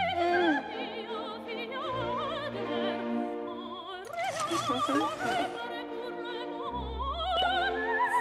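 Background music: an operatic voice singing long notes with a wide vibrato over an orchestral accompaniment.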